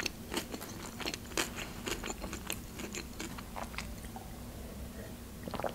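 Close-miked chewing: a run of short wet mouth clicks and smacks that thins out after about three and a half seconds. Near the end come quieter sips from a glass of ayran.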